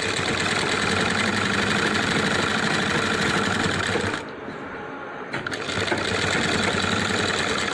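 Sewing machine running at speed, topstitching along the edge of a piped shirt-cuff strip. It pauses for about a second roughly four seconds in, then runs again.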